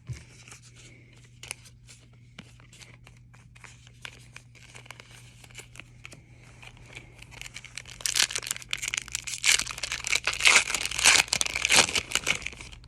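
A hockey card pack's wrapper being torn open and crinkled: faint scattered clicks of handling at first, then loud crackling for about four seconds from about eight seconds in.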